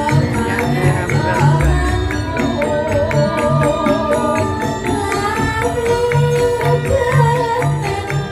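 Javanese gamelan accompaniment of a langgam, with a steady beat of drum and metallophone strokes and even low pulses under a wavering melody line.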